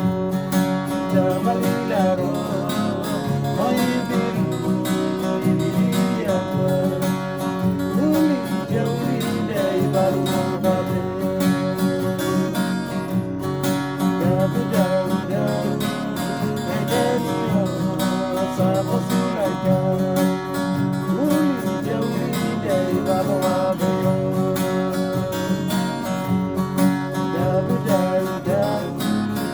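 String band music: acoustic guitars strummed in a steady rhythm, with a voice singing a melody over them.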